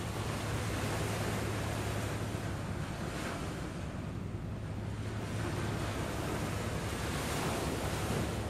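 Small waves breaking and washing up a sandy beach, the surf swelling and easing every few seconds, with wind buffeting the microphone and a steady low hum underneath.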